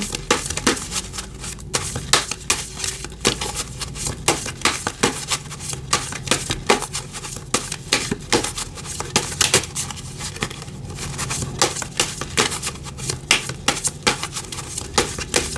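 A tarot deck being shuffled and handled: an irregular run of quick, light clicks and snaps of card against card.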